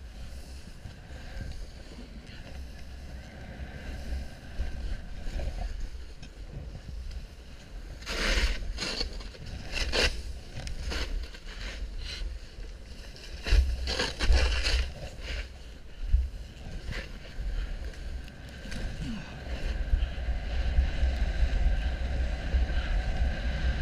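Snowboard sliding through deep powder, with wind buffeting the camera microphone and a steady hiss of snow under the board. A few louder rushes of sprayed snow come about eight to ten and thirteen to fifteen seconds in.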